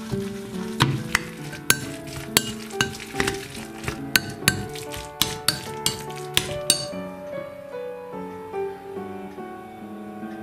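Spoon clinking against a glass mixing bowl while stirring a grated potato and egg batter, sharp clinks about twice a second over background music; the clinks stop about two-thirds of the way through, leaving only the music.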